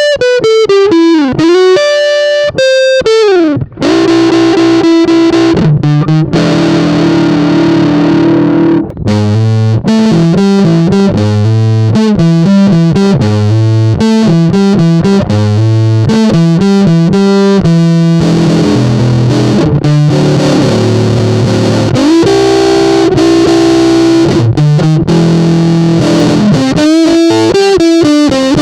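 Squier Jazzmaster electric guitar through a Big Muff-style fuzz pedal, playing rhythm-and-blues licks with string bends in the first few seconds. The playing breaks off briefly about nine seconds in, then goes on with repeated riffs.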